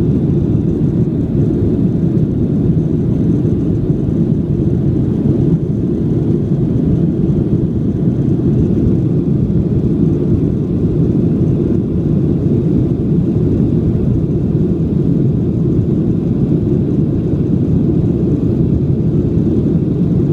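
Steady low roar inside the cabin of a Boeing 737-700 in its climb after takeoff: the CFM56-7B turbofan engines under climb power mixed with the rush of air past the fuselage.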